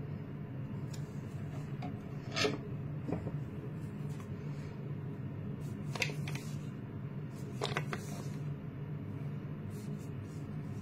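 Hands laying a serrated table knife on a tabletop and handling a cardboard smart watch box: a handful of short scrapes and taps over a steady low hum.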